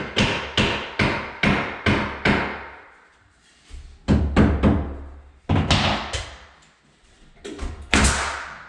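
Sharp knocks on wood in short runs of about two a second, each ringing briefly, with pauses between the runs.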